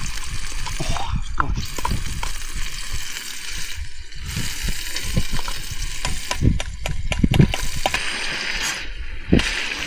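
Thai green curry paste sizzling in a pan on a camping stove while being stirred, a steady hiss with short knocks and clicks.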